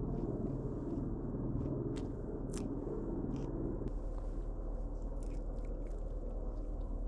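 A person chewing a mouthful of lettuce-wrapped pork (ssam), with a few short crisp crunches; the chewing is heavier for the first few seconds, then eases.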